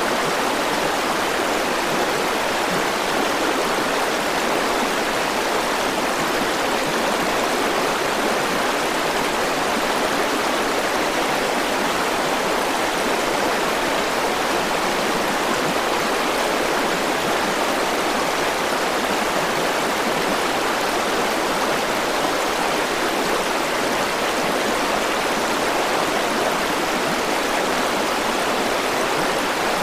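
River water flowing steadily over rocks, an even rushing with no breaks or changes.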